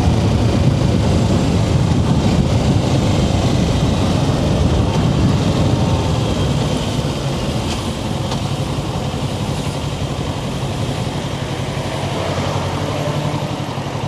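Kawasaki Ninja 650's parallel-twin engine running steadily, easing a little from about halfway through.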